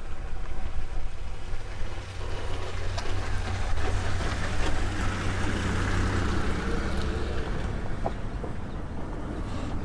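Outdoor field sound: a steady low rumble under a broad hiss, with a few faint clicks.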